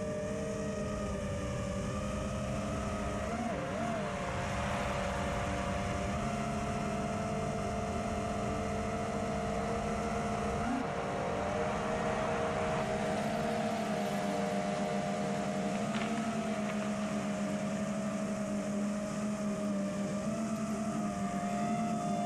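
FPV quadcopter's electric motors and propellers whining steadily, recorded by the camera on board, the pitch wavering briefly a few times with throttle changes. There is a hiss of air rushing past.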